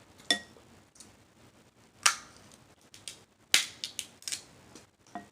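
Snow crab leg shell cracking and snapping as it is broken open: a few sharp cracks, the loudest about two and three and a half seconds in, followed by a quick run of smaller snaps.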